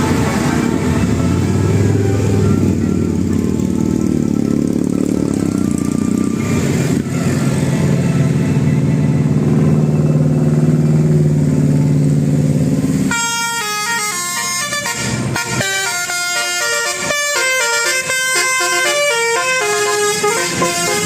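A low vehicle rumble, then, about two-thirds of the way in, a telolet 'basuri' horn takes over: a multi-tone musical horn of the kind fitted to Indonesian buses and trucks, playing a quick tune of stepped notes.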